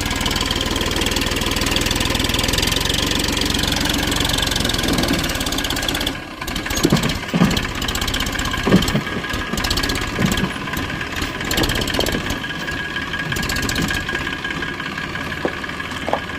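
Massey Ferguson 245 tractor's diesel engine running, with an abrupt change in its sound about six seconds in and some irregular low thumps after it.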